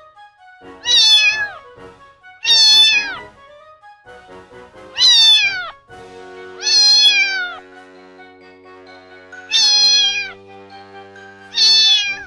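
Domestic cat meowing six times, each meow sliding down in pitch at its end, over soft background music.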